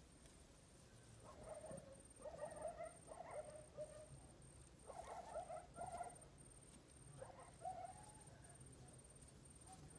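Cats mewing faintly in short bending calls, in three bouts about a second apart, over a steady, evenly pulsed high insect chirping.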